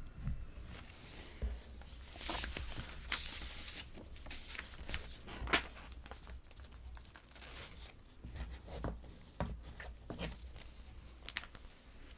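Rustling and crinkling from hands handling something close to the microphone, with many scattered small clicks and a denser stretch of rustling about two to four seconds in.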